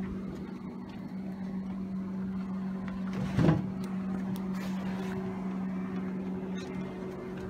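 Steady, even hum of a small electric motor on a fishing boat, holding one pitch, with a brief louder sound about halfway through.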